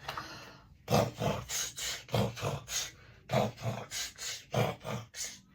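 A rhythmic beat of short, unpitched percussive hits, about three or four a second, beginning about a second in, with a brief gap near the middle.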